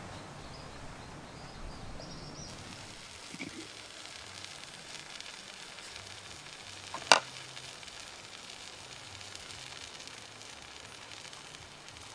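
Water heating in a clay pot over a wood fire, a steady sizzling hiss, with one sharp snap a little past the middle.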